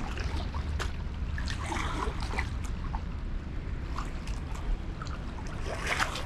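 Steady rush of water pouring through a lake spillway, a dense low rumble with a fainter hiss above it. Scattered small clicks and ticks sit on top.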